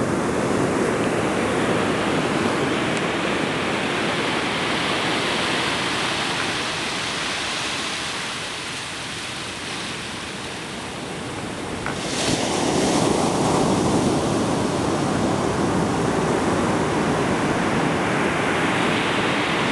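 High-tide ocean surf breaking and washing up a sandy beach as a steady rushing noise. It eases off in the middle, then swells again about twelve seconds in as a new wave breaks and surges up the sand.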